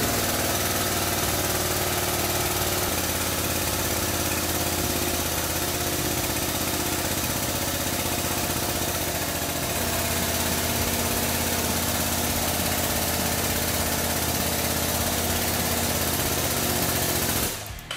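Hydraulic shop press's powered pump running steadily while the ram drives a wheel bearing into a knuckle. It starts abruptly, dips slightly about halfway, and cuts off just before the end.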